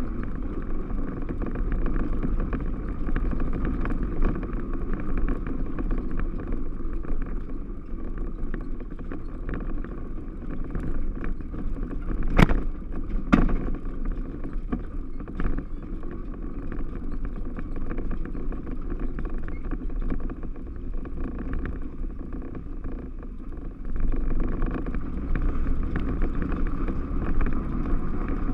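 Yamaha Rhino 660 side-by-side's single-cylinder engine running steadily as it drives along a trail. Two sharp knocks about a second apart near the middle, and the engine gets louder about four seconds before the end.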